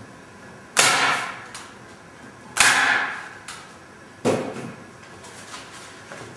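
Staple gun firing three times, about two seconds apart, driving staples through canvas into a wooden stretcher frame. Each shot is a sharp snap with a short fading tail, and there are lighter clicks between the shots.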